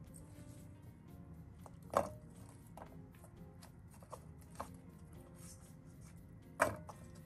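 A few sharp knocks and light taps as pieces of sea bream and sticks of burdock root are set down and shifted in a pan, two of them clearly louder, the loudest near the end. Quiet background music runs underneath.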